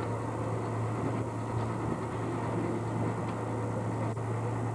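Steady low drone of the whale-watching boat's engine, over a steady hiss.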